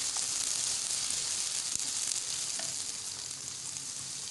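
Sliced onions sizzling in plenty of hot oil as they are browned, a steady high hiss, with a few light touches of the slotted spatula as they are stirred.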